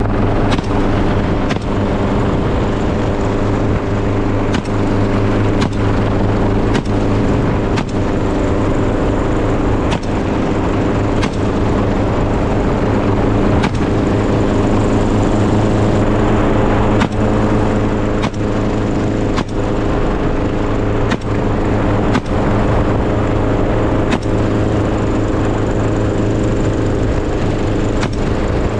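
Steady engine drone, with a faint click about once a second.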